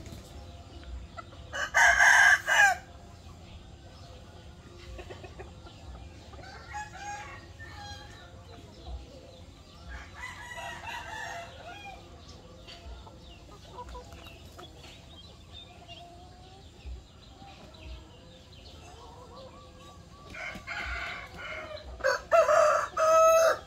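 Roosters crowing: one loud crow about two seconds in, a quieter one around ten seconds, and loud crowing again near the end. Hens cluck softly in between.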